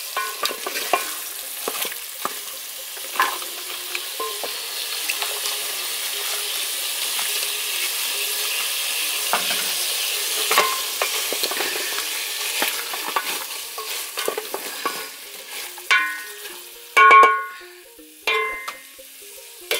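Liver frying in oil in a stainless steel pot, a steady sizzle, stirred with a wooden spoon that knocks against the pot now and then; the sizzle is the sign that the cooking water has boiled off. Near the end a few short, louder pitched sounds come in.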